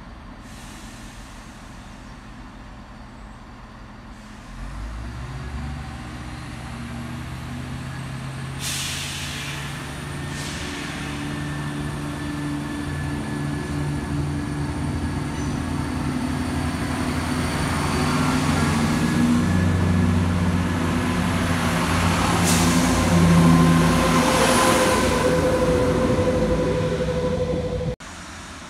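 Class 170 Turbostar diesel multiple unit running in along the platform: a low, steady diesel engine drone that grows louder as it draws near, with several bursts of hissing air. The sound drops away suddenly near the end.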